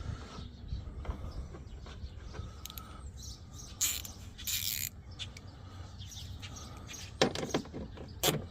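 Handling noise on a pickup door panel: two short scraping or rustling bursts, then several sharp clicks and knocks near the end.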